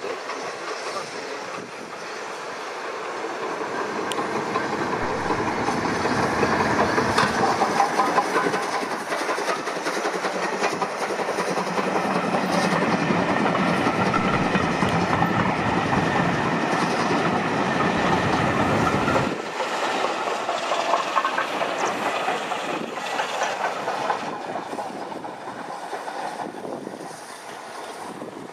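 USATC S160 2-8-0 steam locomotive passing while hauling a train of coaches. The sound swells to its loudest through the middle, drops abruptly about two-thirds of the way through, then fades as the coaches roll by.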